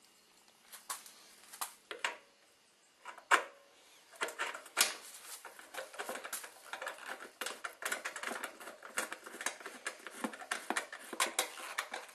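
Nut driver turning a bolt into a snowblower's metal belt cover, the bolt going in at a slight angle: a few separate clicks, then rapid clicking and ticking of metal on metal from about four seconds in.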